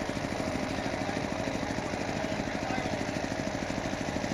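A small engine running steadily at an even idle, with a rapid regular throb.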